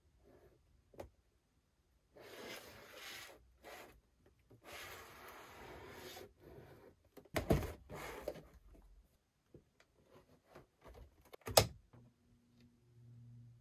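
Cardboard toy box being handled: its cardboard rubs and slides in the hands, with a sharp knock about halfway through and a louder one near the end as a numbered cardboard door on the box is pushed open.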